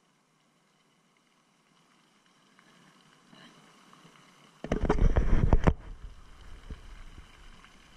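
A burst of rumbling buffeting on the chest-mounted camera's microphone, about a second long and loud, about halfway through, with fainter rustling building before it and trailing off after.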